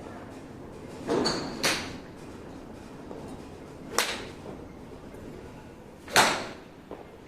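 Golf club swung in practice drills, swishing sharply through the air several times, the loudest swish about six seconds in.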